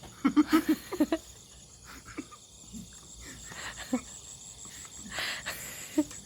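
Steady high-pitched trill of crickets, with a few short vocal sounds in the first second and a brief hiss about five seconds in.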